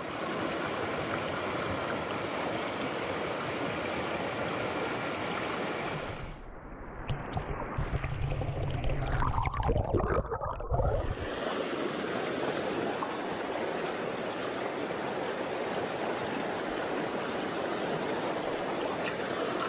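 Steady rush of a small mountain stream over rocks. From about six to eleven seconds it turns muffled and low, a gurgling rumble heard from under the water's surface, then the open rushing returns.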